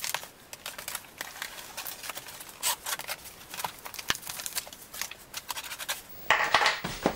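Cardboard shipping box being opened: scratching and scraping on the packing tape and cardboard, with many small clicks and some tearing, louder in the last second.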